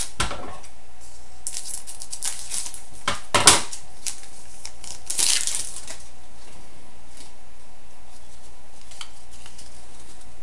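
Trading card pack wrapper being crinkled and torn open, with cards handled, in several short rustling bursts.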